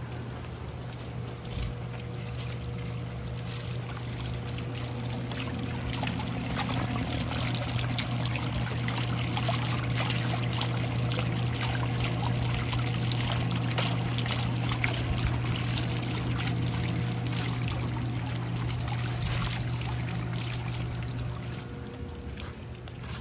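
Hot spring water welling up from a small stone fountain spout and splashing over its rim, louder in the middle and easing near the end, over a steady low hum.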